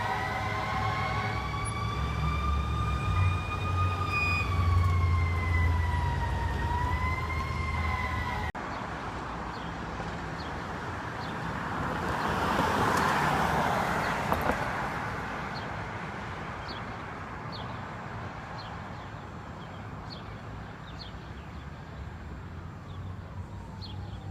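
A fire truck's mechanical Q2B siren wails over a low engine rumble, its pitch rising and falling slowly and unevenly. After a sudden cut about a third of the way in, a rushing vehicle noise swells and fades around the middle. A faint siren glide rises near the end.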